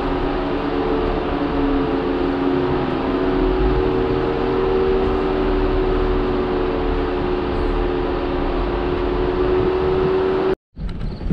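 Jeep Wrangler JL Rubicon running steadily on the trail, with a steady whine over the engine and drivetrain noise. About ten and a half seconds in it cuts off abruptly, then a different, rougher noise follows.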